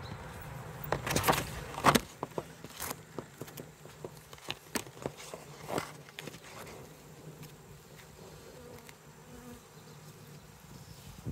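Honeybees of a queenless nucleus colony buzzing as a low steady hum around a newly introduced caged queen. A few sharp knocks sound in the first two seconds, then fainter scattered clicks.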